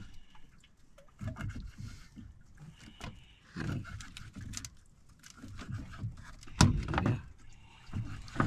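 Irregular small knocks and handling sounds from fishing gear being worked on an outrigger boat's bamboo deck, with one louder knock about six and a half seconds in.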